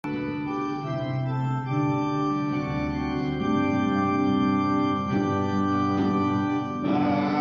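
Organ playing slow, sustained chords that change every second or two; near the end a choir begins to sing over it.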